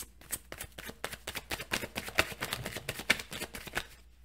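A deck of oracle cards shuffled by hand: a quick, irregular run of soft card clicks, several a second.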